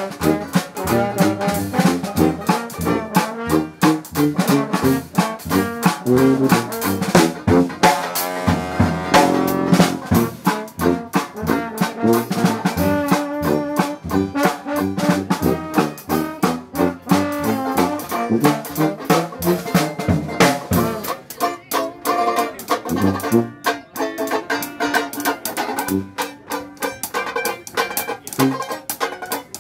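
Live Dixieland jazz band playing: trombone, tuba and banjo, with a cymbal. Near the end the trombone stops and the low brass thins out while the banjo carries on.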